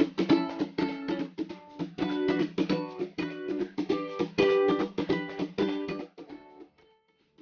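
Intro background music: a rapidly strummed plucked-string instrument like a ukulele or guitar, fading out about six seconds in.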